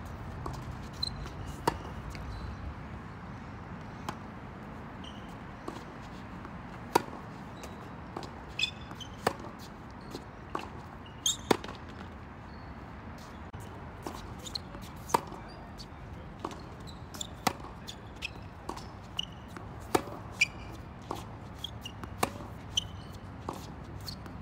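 Tennis rally on a hard court: racket strings striking the ball and the ball bouncing on the court, sharp pops every second or two at an irregular pace, over a steady low background noise.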